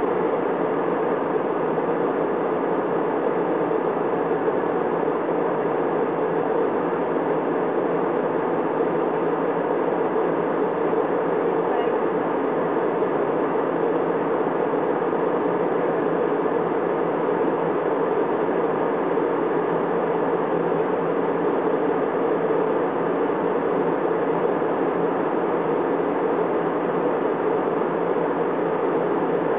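Steady cabin noise of a jet airliner in flight: an even rushing hum of engines and airflow, heard from inside the cabin.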